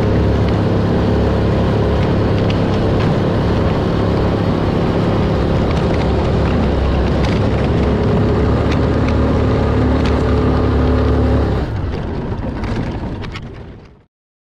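Kuba Alterra 350 4x4 ATV's water-cooled 350 cc engine running steadily while the quad is ridden along a dirt track. Near the end the engine tone drops away and the sound fades out.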